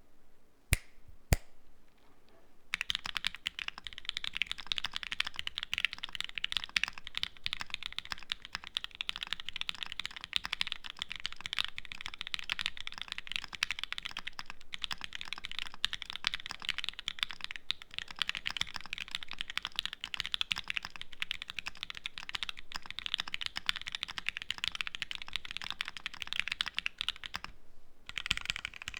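Typing on an LZ Physix mechanical keyboard with a carbon fiber plate, linear Tealios V1 switches fitted with vintage Cherry black stems and lubed with Krytox 205g0, soft o-rings and GMK Oblivion keycaps. Two sharp single keystrokes come in the first second and a half, then fast continuous typing starts about three seconds in, with a brief pause near the end.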